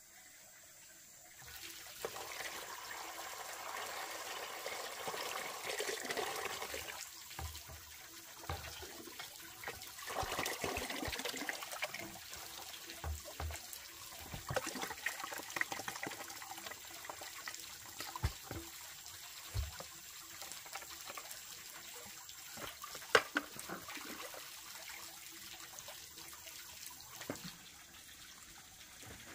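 Water running and splashing, loudest in the first third, with scattered knocks and clatters and one sharp clack about three-quarters of the way through.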